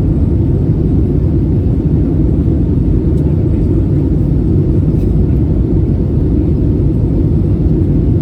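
Steady low rumble of engine and airflow noise heard inside the cabin of an Airbus A320-271N, powered by Pratt & Whitney PW1100G geared turbofans. The aircraft is under power.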